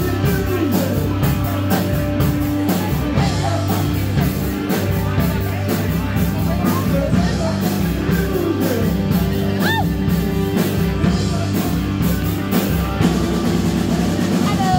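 Live rock band playing: drum kit and guitar, with steady drum hits.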